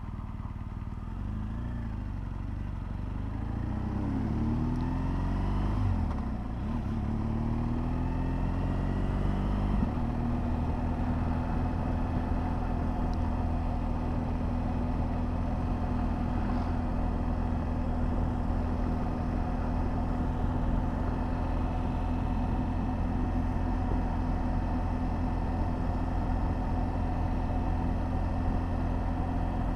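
BMW R1200GS Adventure's boxer-twin engine accelerating through the gears, its pitch rising and dropping back several times over the first ten seconds or so, then running steadily at a light cruise.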